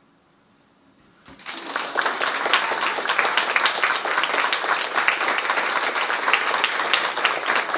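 Audience applauding: after about a second of near silence, clapping breaks out suddenly and keeps going, many hands at once.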